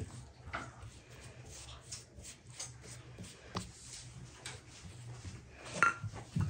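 Pastry brush working over a thin sheet of rolled dough and dipping into a glass bowl, with a few light clinks of brush on glass, the sharpest one with a brief ring near the end. A low steady hum sits underneath.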